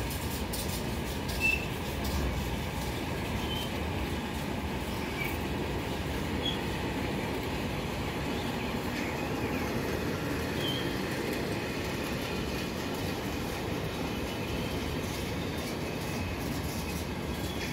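Freight train of car-transport wagons loaded with vans rolling past at a steady speed: a continuous rumble of wheels on rails, with a few brief high squeaks now and then.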